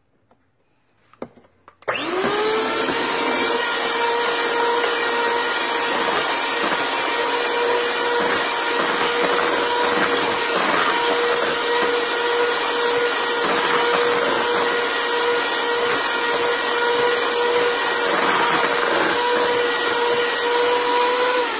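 Electric hand mixer (Bella 10-speed, 250 W) switched on about two seconds in. It runs steadily with a constant whine as its beaters mix thick cake batter in a plastic bowl. A few faint taps come before it starts.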